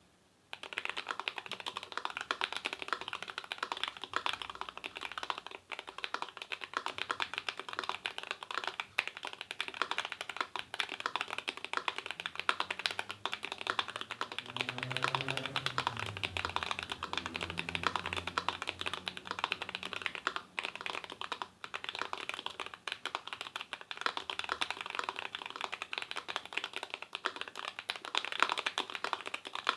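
Fast, continuous typing on an Idobao ID80 mechanical keyboard with Akko Jelly Black linear switches and KBDfans WOB keycaps. The typing starts about half a second in and is a dense stream of key clacks with no pauses.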